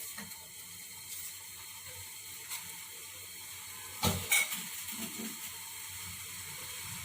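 A pan of water with sugar and spices boiling on the stove: a steady hiss with small, irregular pops and clicks. A brief louder clatter comes about four seconds in.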